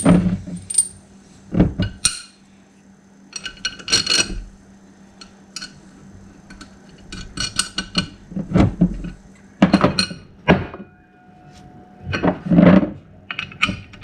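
Steel mounting plates, bolts, nuts and washers from an air spring kit clinking and knocking on a workbench as they are handled and set down, with short metallic rings. The knocks come irregularly, a few heavier ones near the end.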